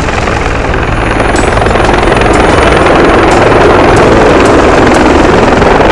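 Army helicopter coming in to land close by, its rotor and turbine noise swelling over the first couple of seconds and then holding steady and loud.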